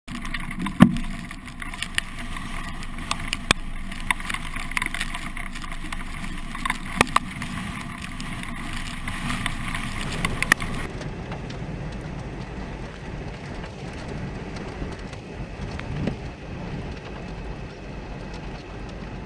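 Steady rumble of wind and vehicle noise, with scattered sharp clicks and knocks in the first ten seconds. About eleven seconds in the higher sounds drop away and the rumble turns duller.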